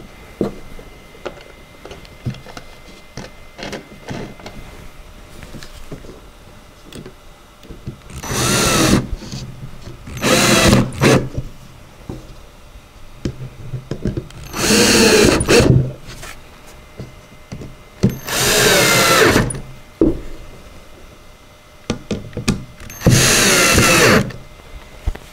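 Cordless drill driving screws through the back edge of an armoire side panel into its top and bottom boards: five short runs of about a second each, with the motor's pitch changing as each screw goes in.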